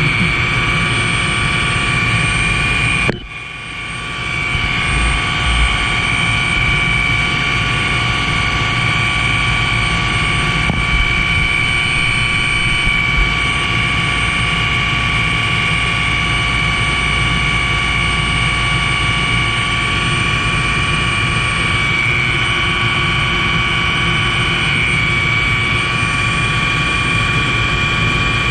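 Tour helicopter in flight: steady engine and rotor noise with a constant high whine. The sound drops sharply about three seconds in and builds back within a second or two.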